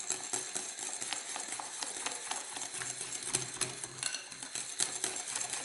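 Hand whisk beating a liquid coffee mousse mixture of cream and white chocolate in a ceramic bowl: quick, steady clicking and scraping of the whisk against the bowl.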